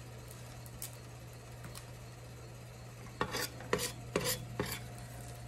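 A metal utensil scraping and clinking against a stainless steel pot, about five short, sharp strokes in quick succession, as leftover no-bake cookie mixture is scraped from the pot. The strokes start about three seconds in, after a quiet stretch.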